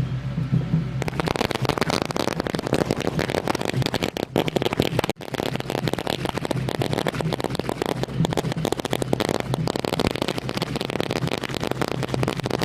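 A string of firecrackers going off in a continuous rapid crackle, starting about a second in.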